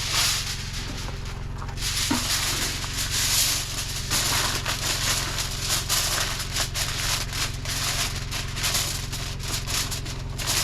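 Aluminium foil crinkling and rustling as a smoked pork butt is wrapped in it, a dense run of small crackles, over a steady low hum.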